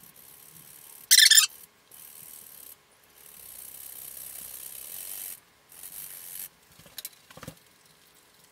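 Boiled carrot being grated on a metal box grater, a steady high rasping hiss in several stretches. A short, loud, high-pitched squeak about a second in, and a few light knocks near the end.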